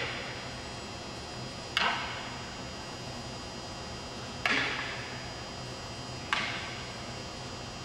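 Wooden practice swords (bokken) striking each other: three sharp wooden clacks about two seconds apart, each echoing briefly in a large hall.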